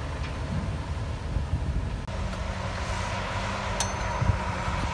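Heavy diesel machinery running steadily, with a low drone and a held hum that comes in about two seconds in. A sharp metallic clank sounds a little under four seconds in, followed by a low thump.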